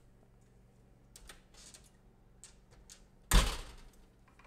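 A few light clicks and rattles, then a kitchen oven door thudding once about three seconds in, as a tray of baked cookies is taken out of the oven.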